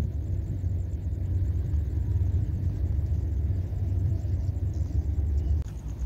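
Steady low rumble with no clear pitch, easing a little near the end. A faint, fast, even pulsing sounds high above it.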